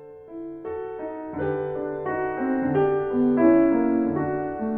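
Instrumental piano music playing a slow melody over held chords, swelling in loudness over the first few seconds.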